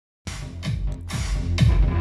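Electronic dance music starting suddenly after a moment of silence, with a heavy kick drum about twice a second and hi-hats, played through a sound system with a homemade 15-inch subwoofer box for a sound check.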